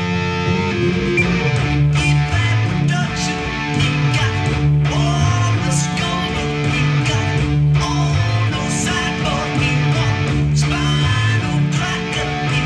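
Electric guitar playing lead lines with bent notes over a repeating bass line, in a live rock cover.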